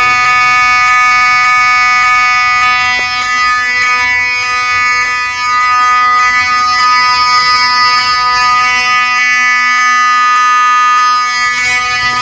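12-volt electronic fire alarm horn strobe sounding a loud, steady, buzzy horn tone without a break.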